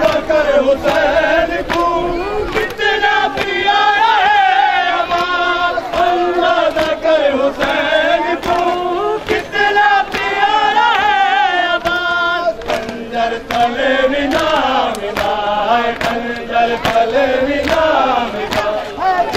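A crowd of men chanting a Muharram-style mourning lament together, its melody rising and falling. A steady beat of open-hand slaps on chests (matam) keeps time under the singing.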